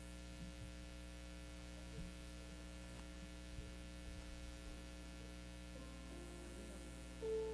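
Low, steady electrical mains hum from the sound system. A few held instrument notes begin near the end as music starts.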